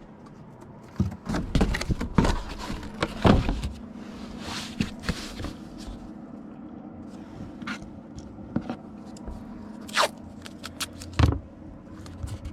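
Packing noises as a comic book goes into a cardboard comic mailer: scraping and rustling of card and plastic, then scattered sharp clicks and two louder knocks near the end.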